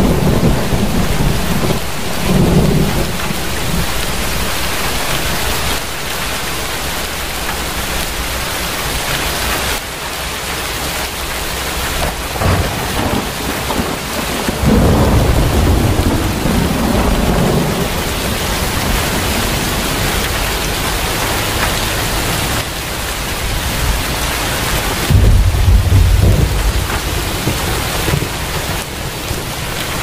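Steady rain with rolls of thunder: deep rumbles swell up near the start, about halfway through, and again a few seconds before the end.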